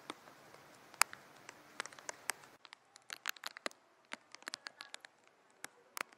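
Irregular sharp ticks and taps of rainwater dripping, over a faint hiss that drops away about two and a half seconds in.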